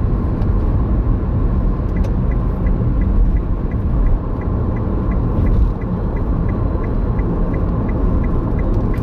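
Low, steady rumble of a car's engine and running gear heard inside the cabin as it creeps forward in slow traffic. From about two seconds in, a light regular ticking about three times a second, the car's turn-signal indicator.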